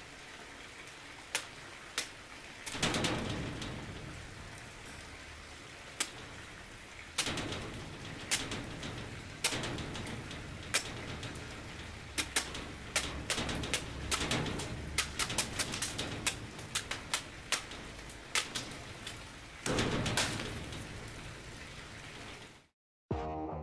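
Damascus push dagger stabbing and slashing into a hanging watermelon: many sharp hits at an uneven pace, coming thick and fast in the middle, over a steady background hiss. The sound cuts off suddenly near the end.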